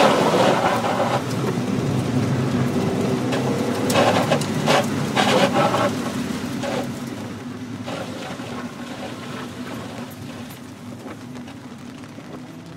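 Mazda Miata's four-cylinder engine running, heard from inside the cabin, with windscreen wipers swishing over a rain-soaked windscreen and rain and spray on the car. The sound gets steadily quieter in the second half as the engine eases off.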